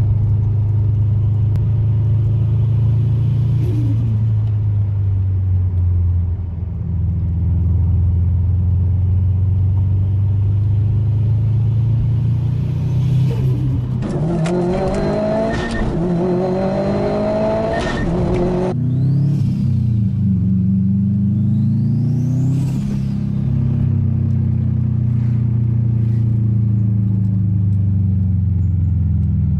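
Turbocharged car engines running and being revved across several short clips, the engine pitch rising and falling. In the middle, one clip has the engine revving steeply upward, followed by a couple of quick rising whistles.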